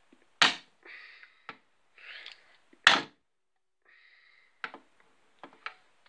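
Two hard knocks of a walkie-talkie aerial striking the centre of a GENT 1102 fire alarm call point's plain glass, about two and a half seconds apart, then a few lighter taps near the end; the glass does not crack.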